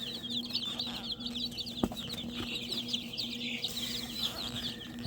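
Many newly hatched chicks in a brooder peeping without pause, short high peeps overlapping one another. A steady low hum runs underneath, and a single sharp click comes about two seconds in.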